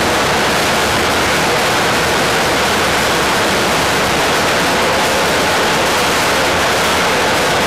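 Heavy steel anchor chain of an amphibious assault ship running out through the deck chain pipe as the anchor is let go: a loud, steady roar without letup.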